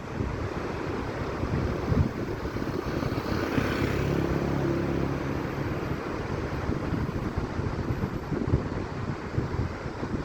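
Wind buffeting the microphone: a gusty low rumble with uneven thumps. A faint droning hum rises in the middle and fades out.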